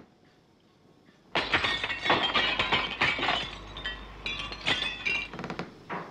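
Breaking glass: a sudden crash about a second in, then a dense run of clinks and rattles that thins out over about four seconds.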